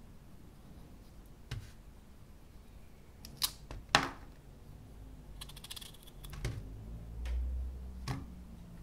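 Peaches being cut and pitted by hand with a kitchen knife over a plastic tray: a few scattered clicks and taps, the loudest about four seconds in, and a short rattle of quick ticks a little before six seconds.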